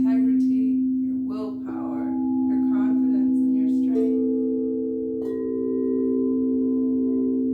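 Singing bowls ringing in sustained, layered tones. A new bowl is struck about one and a half, four and five seconds in, each adding a higher note over the others, and the overlapping tones waver slowly.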